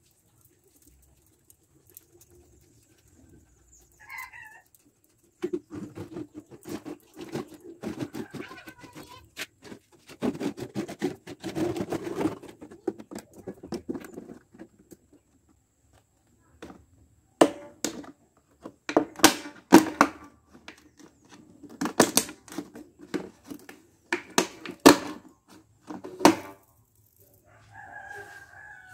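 A clear plastic bottle handled close to the microphone. About five seconds in come dense crackling and clicking, and in the second half loud, sharp clicks and knocks of the plastic.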